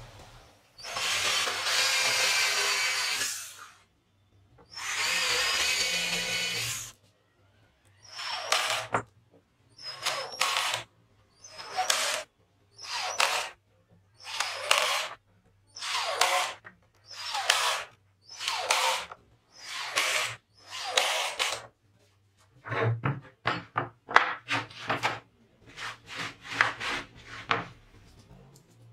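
Cordless drill boring holes into plywood in repeated runs: two longer runs of about two seconds, then a string of short bursts roughly once a second, with quicker, choppier bursts near the end.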